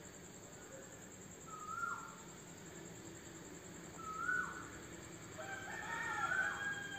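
Roosters crowing, faint: one short crow about one and a half seconds in, a second alike about four seconds in, then two crows overlapping near the end.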